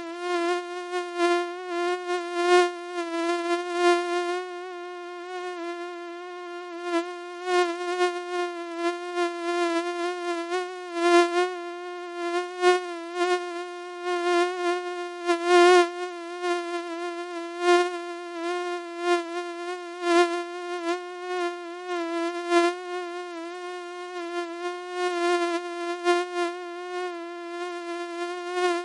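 Mosquito whining in flight: one steady, high buzzing tone with many overtones, swelling louder and fading again over and over as if the insect flies close past the ear and away.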